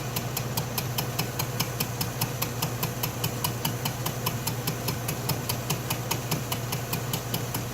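Atlas metal lathe running with a steady motor hum and an even ticking, about six ticks a second, as the tool takes a light facing cut on an out-of-square part, striking the high side on each turn in an interrupted cut.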